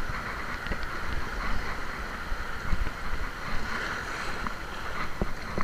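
Surf washing over shoreline rocks, with wind rumbling on the microphone and a few faint clicks.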